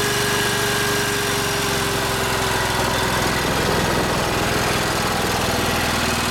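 Subaru-engined portable generator running steadily under full electrical load on wood gas from a gasifier. A vacuum cleaner's motor whine is heard over it and fades about halfway through.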